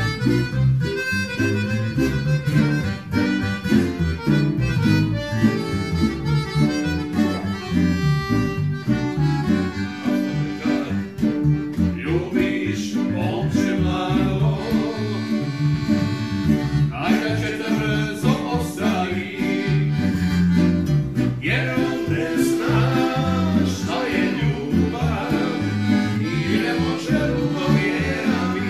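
Live band music from a piano accordion, acoustic guitar and electric bass playing together. Male voices join in singing from about twelve seconds in.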